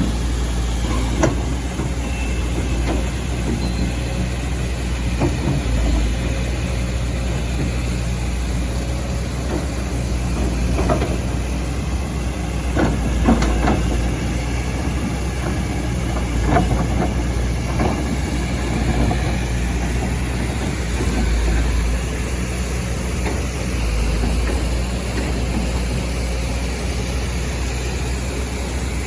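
Excavator's diesel engine running steadily, with scattered knocks and scrapes from the machine at work.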